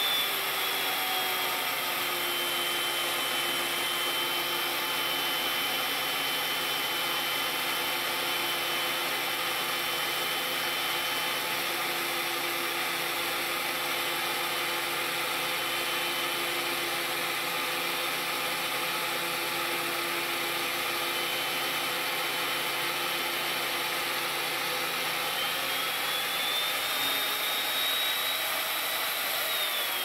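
Electric chain mortiser running and cutting into a squared timber beam. Its motor pitch sags about two seconds in as the chain bites into the wood, holds low under load, and climbs back near the end as the load eases.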